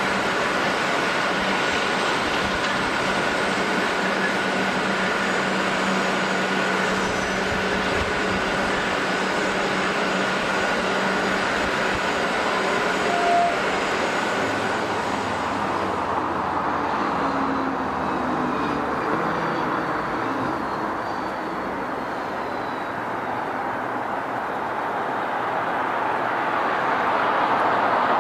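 Airbus A350's Rolls-Royce Trent XWB jet engines running at taxi power: a steady rush with a high whine, fading away about two-thirds of the way through. A rush of engine noise builds again near the end.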